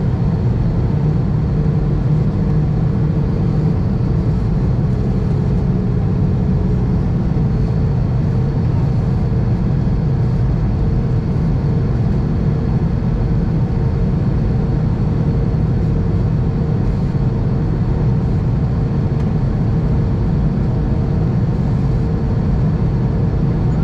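Steady cabin noise inside an Airbus A320 on its descent, heard at a window seat over the wing: an even, deep roar of the engines and rushing air, with a faint steady hum running through it.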